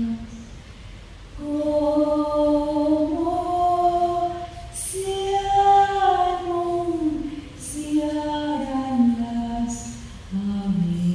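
Slow singing in long held notes that slide from one pitch to the next, with a short break in the first second or so and a few hissed consonants.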